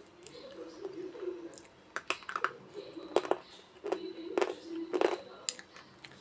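Slate pencil being bitten and chewed: about half a dozen sharp, crisp cracks spread over a few seconds. A low wavering tone runs underneath.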